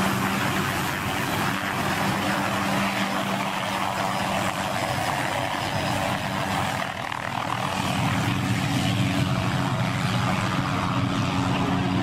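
MD 500 light turbine helicopter lifting off and flying away, its engine and rotor running steadily with a brief dip in loudness about seven seconds in.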